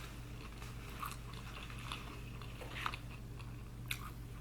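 Close-miked chewing of a mouthful of plant-based burger: soft wet mouth clicks and a few sharper crunchy bites, the clearest about a second in, near three seconds and near four seconds.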